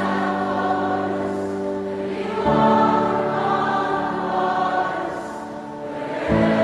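Background music of choir-like voices holding sustained chords, moving to a new chord about two and a half seconds in and again near the end.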